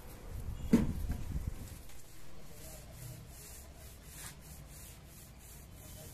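Paint roller on a long pole being rolled back and forth over a concrete terrace floor, a soft repeated rubbing swish, with one sharp knock about a second in.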